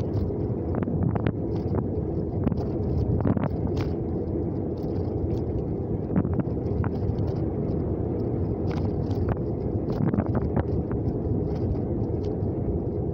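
Road noise and engine rumble heard inside a moving vehicle's cabin, steady throughout, with scattered small clicks and rattles from the cab.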